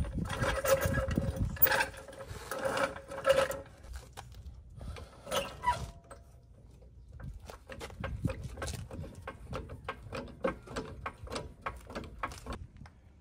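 A ratchet wrench working the exhaust bolts under a Subaru WRX: a squeaky, pitched grinding for the first few seconds, then rapid, even clicking from about halfway through to the end.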